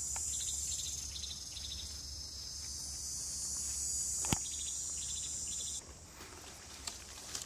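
Insect chorus: a steady high-pitched buzz with short trains of quick chirps repeating. A single sharp click comes a little past four seconds in. The buzz cuts off abruptly near six seconds, leaving quieter scattered ticks and rustles.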